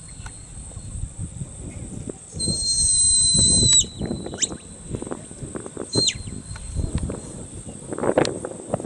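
A sheepdog handler's whistle commands to a working border collie. A long, held, high whistle about two and a half seconds in ends in a downward slide, then a quick rising whistle follows, and a short whistle that drops off comes around six seconds.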